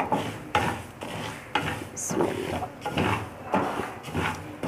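Wooden spatula stirring dry sago pearls in a metal frying pan as they are lightly roasted. The pearls rattle and scrape against the pan in strokes about twice a second.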